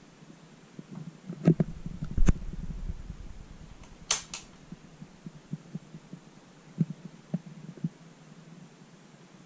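Two low knocks, then a sharp double click about four seconds in as a push-button key on the Bang & Olufsen Beomaster 1000 receiver is pressed, followed by a few lighter ticks, over a steady low hum.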